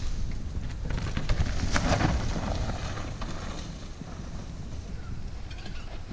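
Mountain bike rolling fast down a dirt forest trail: wind rushing over the microphone over the crunch and rattle of tyres on dirt and leaf litter, with a sharper clatter about two seconds in.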